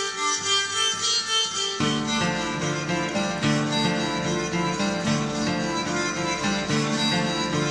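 Steel-string acoustic guitar being played, a string of notes over held ones; about two seconds in, lower notes come in and the sound gets fuller.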